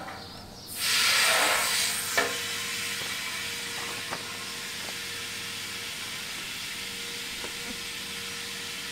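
Water from a garden hose running into an empty stainless steel stockpot: a loud hiss starts about a second in, then settles to a steady, quieter rush as the pot fills.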